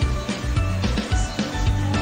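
Background music with a steady beat of about two strokes a second over a deep bass line and held notes.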